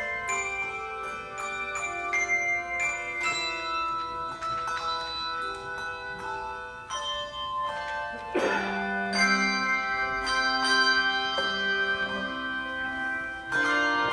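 Handbell choir playing a tune: bells struck one after another and in chords, each note ringing on after it is struck. A louder, lower chord comes in about two-thirds of the way through.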